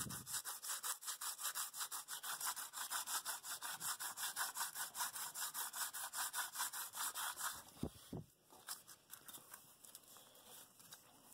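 Sandpaper rubbed in rapid back-and-forth strokes, several a second, along a black synthetic-wrapped blade handle. The strokes stop about three-quarters of the way through, and a couple of soft thumps follow.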